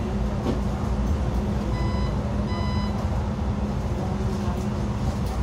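Xiamen King Long XML6125 hybrid city bus running, heard inside the cabin: a steady low hum and rumble. About two seconds in come two short electronic beeps, under a second apart.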